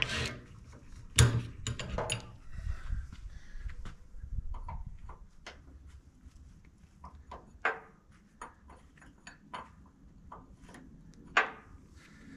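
Irregular metallic clicks and knocks of a hand wrench working the retaining bolt on the bucket-tilt cylinder's mounting pin of a boom lift. The sharpest knock comes about a second in.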